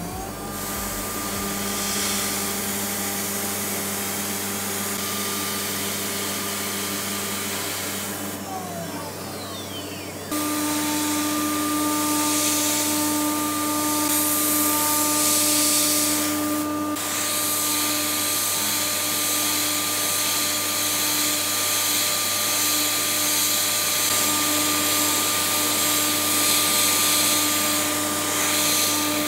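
CNC router spindle cutting a block of PEEK plastic, a steady whine over a constant hiss. First comes the facing pass with a single-flute insert mill at 12,000 rpm. About eight seconds in the spindle spins down with a falling tone, and about two seconds later it runs again at a higher pitch, profiling with a quarter-inch single-flute end mill at 18,000 rpm.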